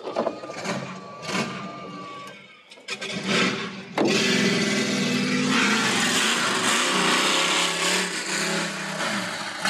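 A loud vehicle engine opens up suddenly about four seconds in and runs hard at high revs for several seconds, easing slightly near the end.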